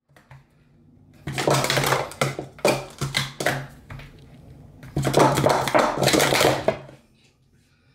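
Plastic sport-stacking cups clattering as they are rapidly stacked up and down on a mat, in two runs: one starting about a second in and lasting a couple of seconds, and another about five seconds in, a timed 3-3-3 stack of 1.68 seconds.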